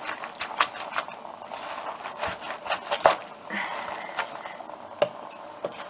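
Soaked eggplant strips being pressed and shifted by hand in a stainless steel pot: a soft rustling with scattered light clicks and scrapes against the pot.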